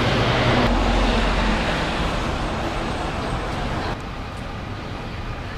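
Road traffic noise with the low hum of a vehicle engine running. The sound drops off suddenly about four seconds in.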